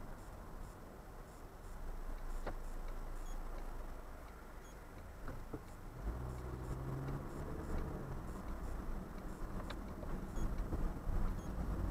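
Car driving on city streets: steady road and engine noise, with an engine note that swells for about two seconds midway and a faint regular ticking throughout.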